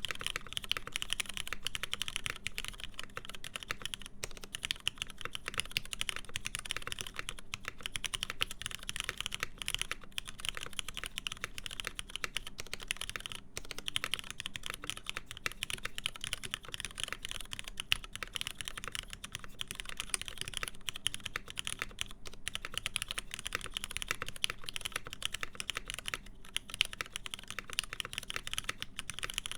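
Fast continuous typing on a mechanical keyboard with lubed, retooled Cherry MX Black linear switches, TX-filmed, in a full aluminum plate, under PBT keycaps: a dense run of keystroke clacks with brief pauses now and then.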